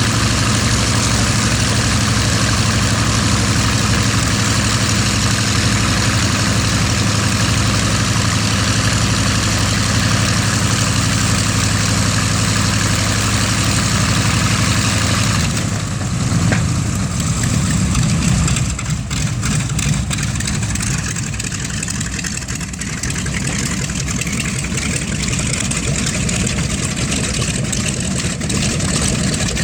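B-25 bomber's Wright R-2600 twin-row radial engines running steadily. About halfway through the sound changes abruptly and runs rougher and less even, with irregular crackles for several seconds.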